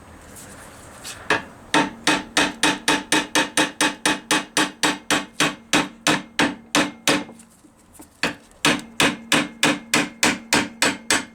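Hammer blows on steel in a quick, steady rhythm of about four strikes a second, each with a metallic ring, knocking the propshaft flange off the splines of a Rover P6 differential's pinion. The hammering pauses briefly about seven seconds in, then starts again.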